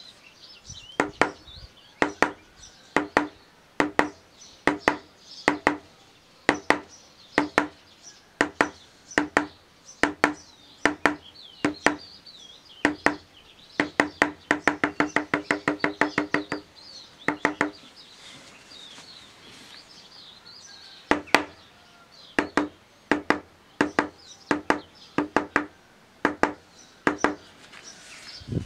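Rubber mallet tapping a metal stamping tool into leather, tracing a carved outline: sharp knocks mostly in pairs about once a second, a quick run of rapid taps around the middle, a pause of a few seconds, then the paired taps again. Birds chirp faintly in the background.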